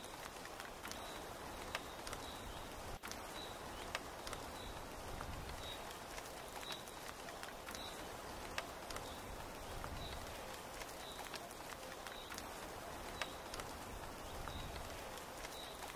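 Steady rain falling on tent canvas and foliage, with scattered drops tapping sharply, and a short high chirp repeating about once or twice a second throughout.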